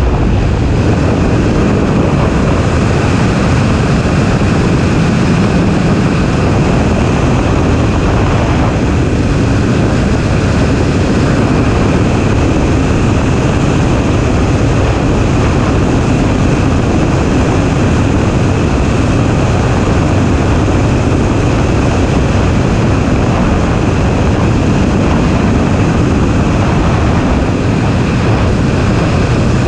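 BMW E30 drift car's M20 straight-six running steadily at speed down a straight, with heavy wind rush over the hood-mounted microphone.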